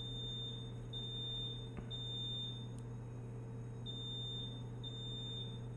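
Fire alarm sounding a high-pitched beep in the temporal-three evacuation pattern: three half-second beeps, a pause, then three more.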